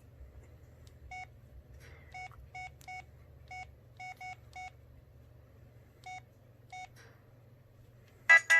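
Samsung Sway flip phone's key beeps: about ten short electronic beeps at uneven spacing as its buttons are pressed to scroll the ringtone menu. Near the end a loud melodic ringtone starts playing from the phone.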